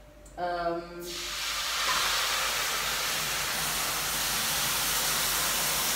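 Cold water poured onto a preheated baking tray in a hot oven, hissing into steam for baking bread. The hiss starts about a second in and holds steady.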